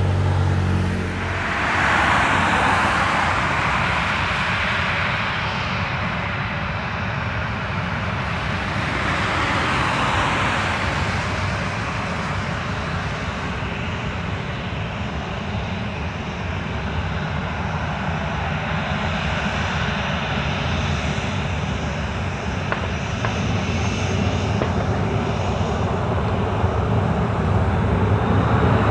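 Jet engines of a Ryanair Boeing 737-800 running as it sits on the runway, a steady whine and rush of engine noise that grows louder over the last few seconds as the engines spool up for the takeoff roll.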